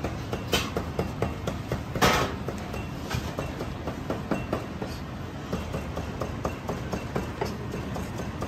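Busy kitchen background: a steady low hum under a quick run of light clicks and knocks, with one louder noise about two seconds in.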